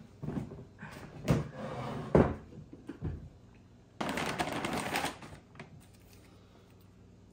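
A few sharp knocks and thuds of things being handled around a kitchen counter, the loudest a little over a second and about two seconds in. Then a brown paper treat bag rustles for about a second as a hand reaches into it.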